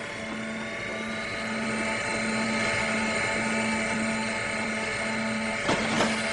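Cartoon sound effect of a machine running steadily: a low hum that pulses several times a second under a high whine and a hiss. Near the end there are two short clicks.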